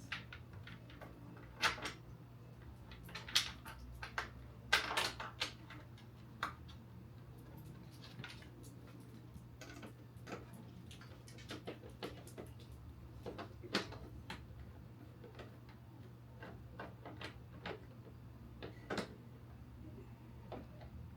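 Plastic and metal parts of a cordless upright vacuum being handled as its handle is fitted and fastened: scattered clicks, taps and knocks at irregular intervals, over a faint steady low hum.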